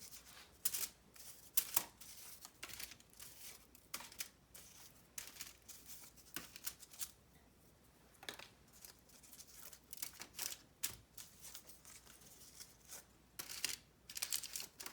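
Crackers being set down and slid into place on a foil-lined cookie sheet: scattered light, crisp clicks and faint foil crinkles, with a few sharper taps.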